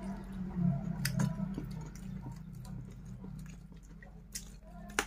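A man chewing a mouthful of rice and fried chicken eaten by hand, with soft wet mouth sounds and two sharp clicks, about a second in and near the end, over a steady low hum.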